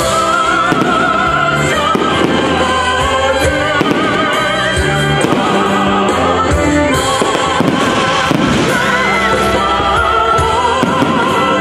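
Fireworks display: irregular bangs of bursting aerial shells over continuous loud music with a singing voice.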